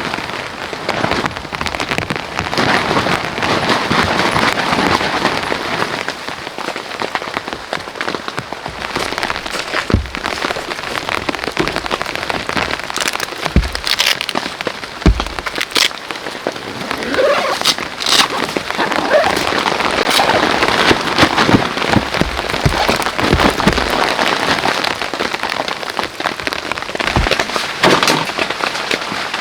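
Heavy rain falling steadily, with a dense patter of drops, many sharp individual drop hits and a few dull thuds.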